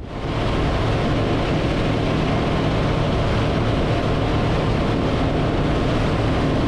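Bass Tracker Pro Team 175 TXW bass boat running at speed across choppy water: a steady rush of wind and water noise with the outboard motor underneath, coming in suddenly at the start.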